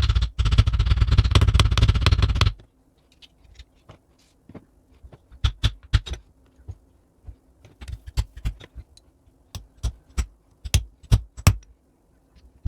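Hand tools working at a seized nut on an old cast-iron door closer: a loud run of rapid clicking and rattling for about two and a half seconds, then scattered metal clinks and taps.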